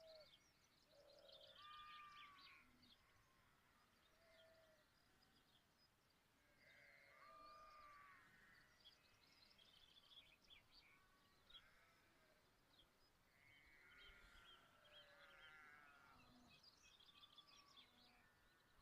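Faint, distant sheep bleating now and then, with small birds chirping throughout.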